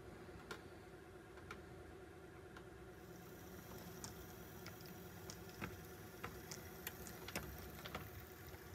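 HO scale diesel locomotive's small electric motor humming faintly as it runs, with light sharp clicks from the model, about one a second at first and more often in the second half.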